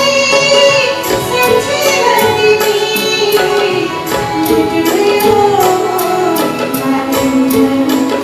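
Live band playing a Nepali song, with melodic instruments such as violins and accordion carrying a tune over a steady hand-drum beat from tabla and madal.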